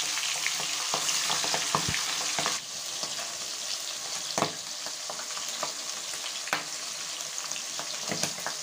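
Pangas fish steaks shallow-frying in hot mustard oil in an aluminium kadai: a steady sizzling hiss with scattered crackles and pops of spattering oil. The sizzle drops a little quieter about two and a half seconds in.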